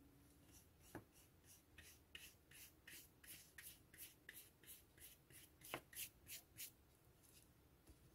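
Faint scrubbing of a flat paintbrush worked back and forth across the painting's surface, about three strokes a second. Two sharper ticks come about a second in and near six seconds.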